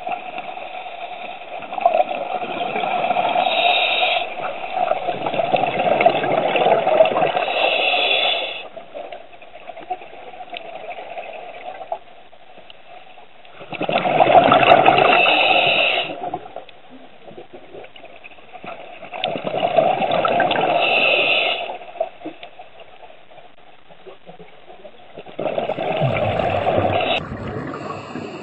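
Scuba regulator exhaust bubbles from a diver breathing underwater, heard through the camera housing: four long bursts of bubbling a few seconds apart, one per exhalation, with quieter stretches between as the diver inhales.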